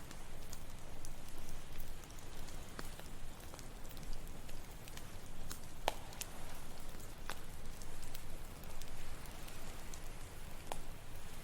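Campfire crackling, with sharp pops at irregular moments (the loudest about halfway through), over a steady rushing noise of ocean waves.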